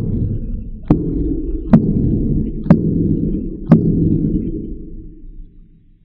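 A fist punching the stiff 12-inch passive radiator of an Earthquake SuperNova subwoofer five times, about once a second. Each blow sets off a low boom from the radiator and cabinet that runs on between punches and dies away after the last one.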